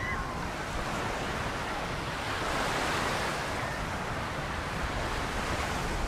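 Ocean surf breaking and washing up on the beach, swelling a couple of seconds in, with wind buffeting the microphone.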